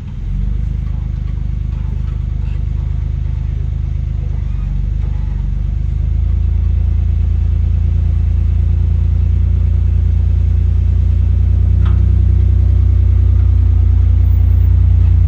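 A vehicle's engine running with a deep, steady low rumble that grows louder about six seconds in.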